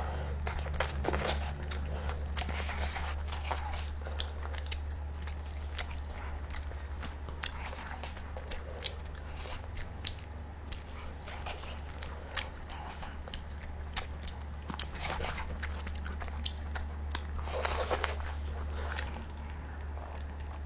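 Close-miked mukbang chewing and biting of steamed chicken: many small wet clicks and crunches in an irregular stream, over a steady low hum.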